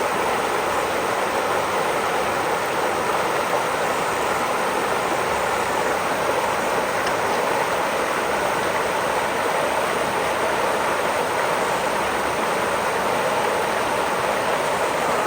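Steady rush of floodwater pouring through a road culvert that has just been cleared of a leaf clog.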